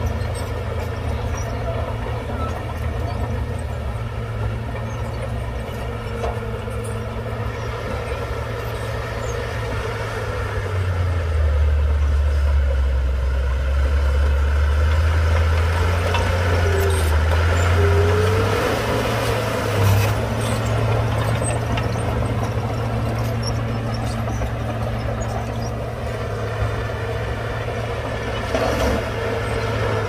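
Heavy diesel earthmoving machinery running steadily, then working harder and louder for several seconds in the middle. This is followed by a brief rising squeal and a single knock about two-thirds of the way through.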